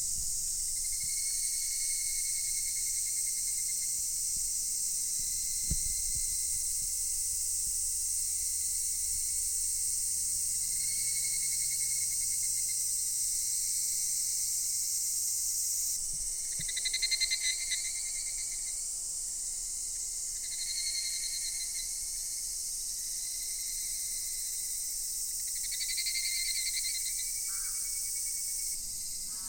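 A loud chorus of cicadas: a dense, steady, high-pitched buzz, with shorter, lower calls breaking out of it every several seconds, one of them pulsing.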